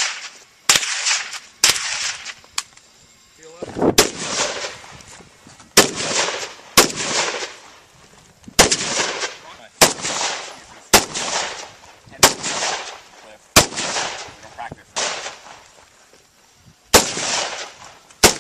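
Carbine fired in single aimed shots, about fifteen of them, spaced one to two seconds apart. Each sharp crack trails off in a long echo.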